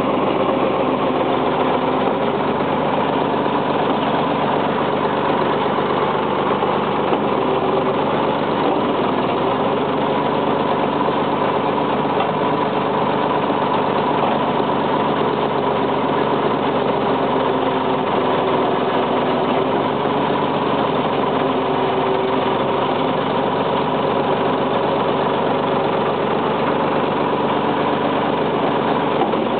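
Backhoe engine running steadily, heard from the operator's seat, with no change in speed.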